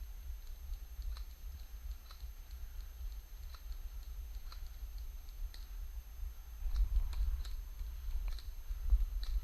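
Irregular sharp clicks and snaps, one to three a second, typical of airsoft guns firing single shots, over a steady low rumble that grows louder late on.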